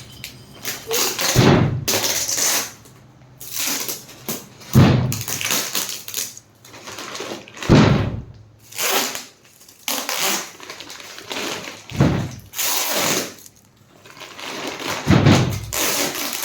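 Packaging being handled and pulled open: irregular rustling with a dull thump about every three seconds.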